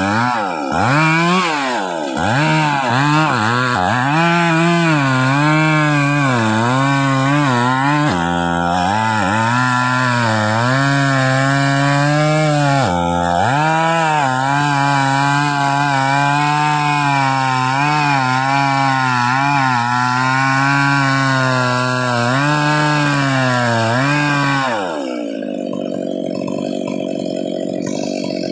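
Stihl MS 381 two-stroke chainsaw cutting into hard trembesi (rain tree) wood, its engine pitch wavering and sagging sharply several times as the hard wood loads it down. About 25 seconds in, it drops back to a steady idle.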